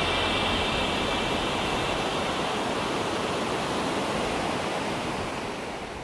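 Steady rushing of whitewater river rapids, fading out near the end.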